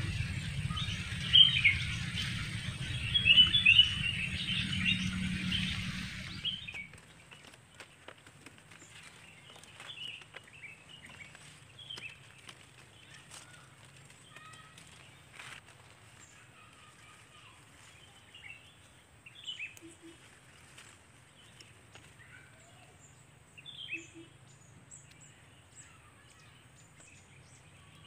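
Small birds chirping over a steady low rumble, which cuts off abruptly about seven seconds in. After that the chirps are faint and scattered, with a few soft clicks.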